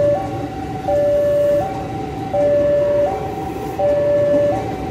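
Railway level-crossing warning alarm sounding its two-tone signal, switching between a lower and a higher tone about every three-quarters of a second, over the rumble of an electric commuter train (KRL) running past on the tracks.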